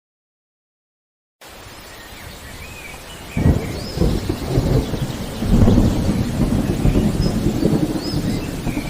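Dead silence for about a second and a half, then steady rain fades in. About three and a half seconds in, a sudden clap of thunder breaks and rolls on as a low rumble, with birds chirping here and there over the rain.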